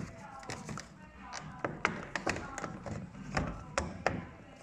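Irregular hard plastic clicks and knocks, about ten of them, as a car fog light housing is handled and pushed into its bumper mount, with faint music in the background.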